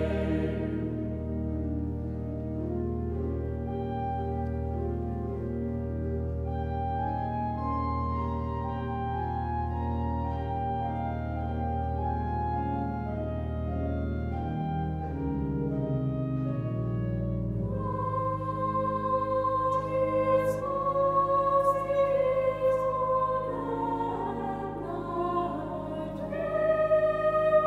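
Sacred choral music: a choir singing slow, long-held notes over low sustained organ notes, growing louder about two-thirds of the way through.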